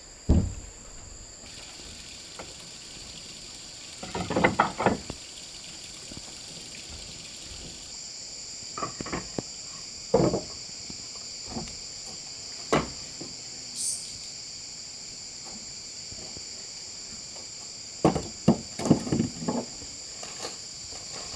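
Steady high-pitched chirring of insects, with irregular knocks and clatters in small clusters throughout.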